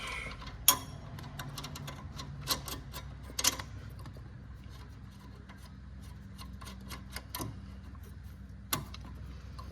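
Hand ratchet clicking in short runs as suspension bolts are done up, with a few louder metallic knocks of tools on the car's front strut and hub.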